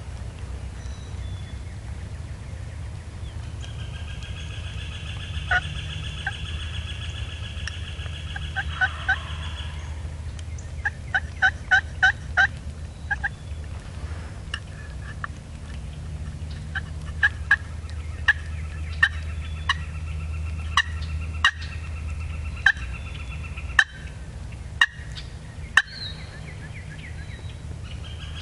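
Wild turkeys gobbling and calling: a quick run of sharp rattling notes about eleven seconds in, then loud single calls roughly once a second near the end, over a steady low hum.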